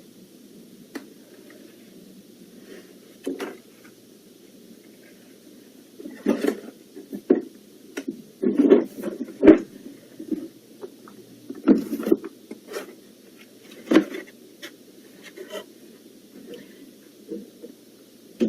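A string of short knocks, clunks and rustles of things being picked up and moved while tidying a room, sparse at first and busier from about six seconds in, over a steady low background hum.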